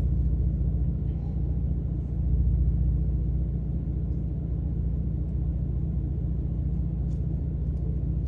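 Ford F-150 pickup driving, heard from inside the cab: a steady low road and engine rumble that swells briefly about two seconds in.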